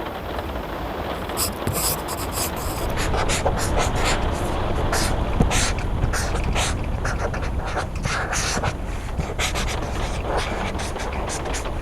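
Pencil scratching across paper in many quick, short strokes over steady rain. The strokes come thicker after the first few seconds.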